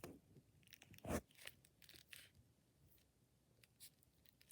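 Faint, scattered sticky crackles and squishes of thick slime being mixed by hand with marshmallow, rose and white chocolate add-ins, the loudest about a second in.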